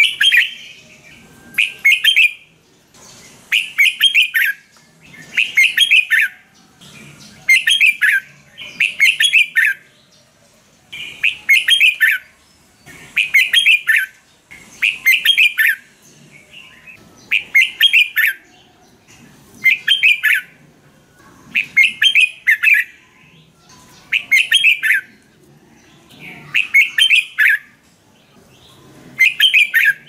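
Red-whiskered bulbul singing, repeating a short phrase of quick notes over and over, about one phrase every two seconds.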